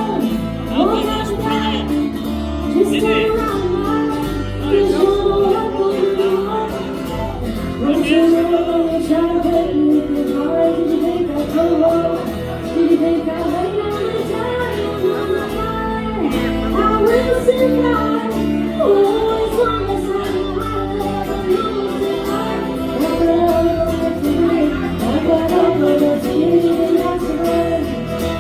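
Live band playing a song: electric guitar and bass under a melody line, loud and continuous.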